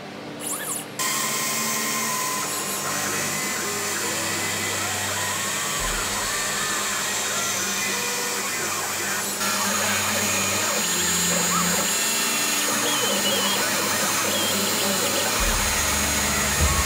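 CNC router spindle running while a fine tapered bit mills pockets into a maple cutting-board blank: a steady high hiss and whine, starting about a second in.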